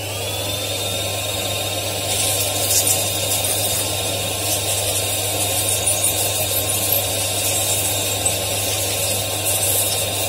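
An air compressor motor spins up and runs steadily. From about two seconds in, compressed air hisses in bursts from a blow gun as a freshly cleaned chainsaw carburetor is blown out and dried.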